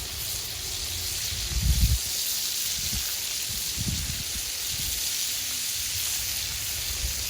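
Burger patties sizzling over a campfire, a steady hiss, with a low rumble about one and a half seconds in.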